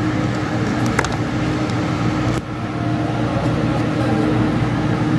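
Steady low machine hum, with one sharp click about a second in.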